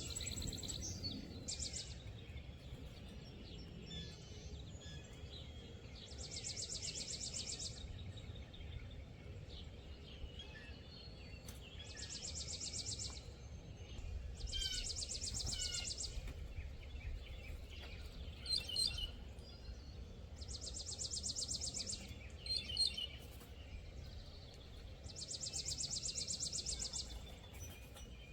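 Wild birds singing: a dry, rapid trill of about a second and a half, repeated five times several seconds apart, with a few short chirps between, over a low steady rumble.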